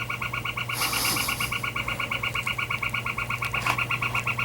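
Northern flicker giving its long call: a rapid, even series of identical notes, about nine a second, going on without a break. A brief hiss comes about a second in.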